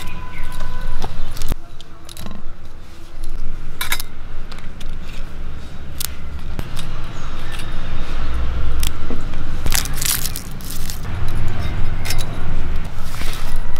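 Hands handling dried red chilies on a clay plate and peeling a garlic clove: scattered dry rustles and a few sharp clicks, over a low rumble.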